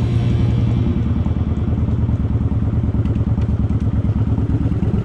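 Kawasaki Vulcan 900's V-twin engine running steadily at low speed, a low, even throb of exhaust pulses from a bike rolling slowly.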